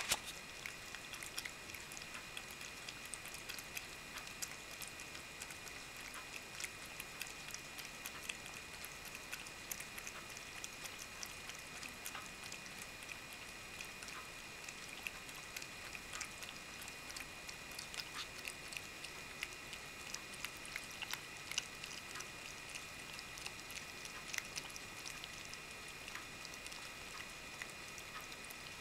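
A cat eating chicken broth and meat from a bowl: faint, irregular small wet clicks of its mouth at the food, over a steady faint high whine.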